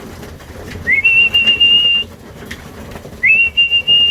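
A whistle sounded twice, each time a quick upward slide into a steady held note of about a second: a pigeon fancier's call to bring racing pigeons down into the loft.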